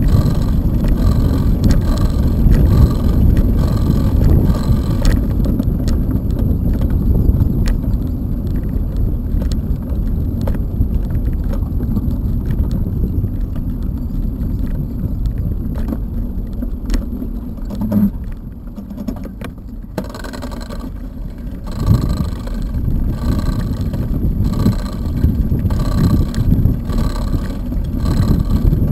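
Bicycle tyres rolling over a wooden plank boardwalk, under a loud low rumble of wind on the microphone. An even, repeating rattle is strongest near the start and again over the last several seconds, and everything eases off briefly a little past the middle.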